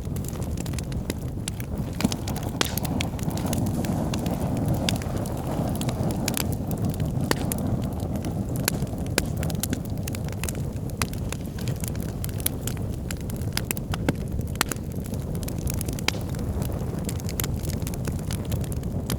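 Wood logs burning in a fireplace: a steady low rush of flames with frequent irregular crackles and sharp pops.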